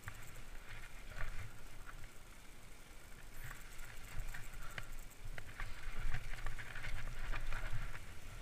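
Trek Fuel EX 8 mountain bike riding down a dirt forest trail: tyres crunching over dirt and debris, with scattered clicks and rattles from the bike over a low steady rumble. It gets busier and louder about two-thirds of the way through.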